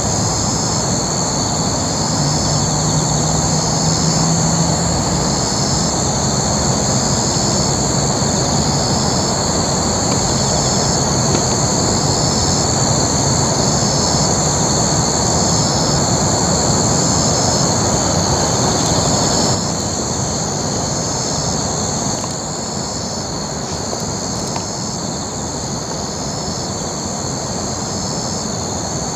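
Night insects such as crickets singing: a steady high trill with a second chirp pulsing in a regular rhythm beside it, over a steady background rush that drops a little about two-thirds of the way through.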